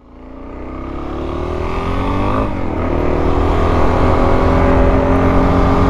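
Dirt bike engine pulling away and accelerating, its pitch and loudness climbing, with a shift about two and a half seconds in, after which it runs at a steady cruising speed.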